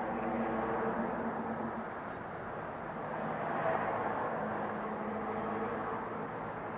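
Steady background engine drone from passing motor traffic, swelling and easing slightly.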